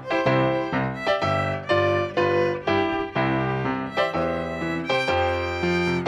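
Instrumental music: a violin playing a melody over a piano accompaniment, with distinct notes struck in a steady pulse.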